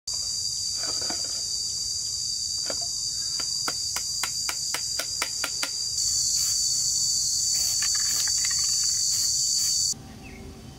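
Loud, steady, high-pitched shrill of insects in the surrounding forest, cutting off suddenly near the end. In the middle, a quick run of about ten sharp knocks.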